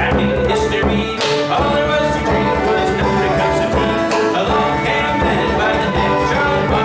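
Live folk band playing a drinking song: a man sings while picking a banjo, with acoustic guitar strumming, flute and a bodhrán beaten with a tipper.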